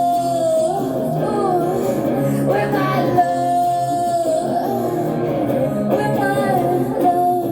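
Live music: a singer holding long, wavering notes over guitar accompaniment.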